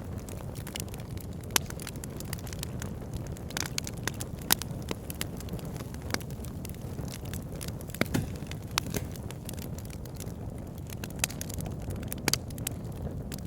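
Fireplace wood fire crackling: a steady low rumble of flames with irregular sharp pops and snaps, a few of them much louder than the rest.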